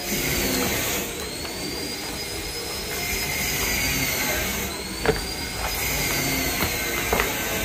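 Steady whirring machine noise with a faint high whistle that swells and fades about every three seconds. A few short sharp clicks come in the second half.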